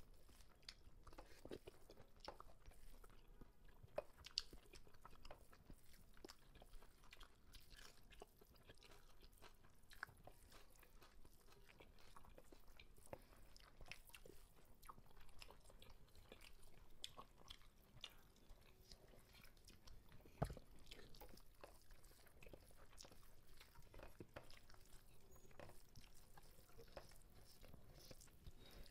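Faint chewing and mouth sounds of two people eating biryani by hand, with small clicks of fingers and rice against steel plates. A sharper knock comes twice, about four seconds in and about twenty seconds in.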